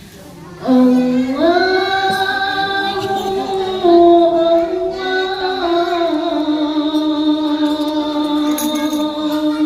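A single high voice singing unaccompanied, starting about a second in and holding long, slowly gliding melismatic notes: the solo opening of a habsyi devotional song.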